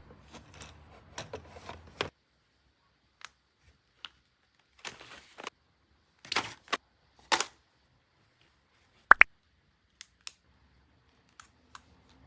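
Handling sounds of items being unpacked and put away: scattered light clicks and taps with a few short rustles, and one sharp knock about nine seconds in.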